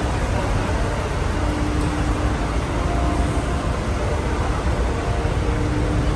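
Steady low engine rumble with a faint, constant hum on a car ferry's vehicle deck. It is unbroken, with no distinct knocks or changes.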